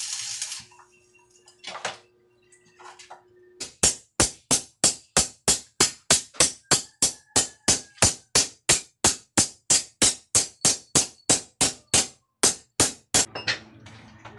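A welding arc crackles in a short burst of about a second. A couple of seconds later a hand hammer strikes steel in a steady rhythm, about three sharp ringing blows a second for roughly ten seconds, then stops near the end.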